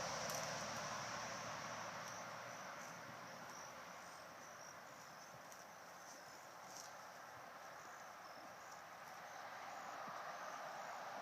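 Faint insect trilling, a steady high buzz, over a soft even hiss that dips in the middle and swells again near the end.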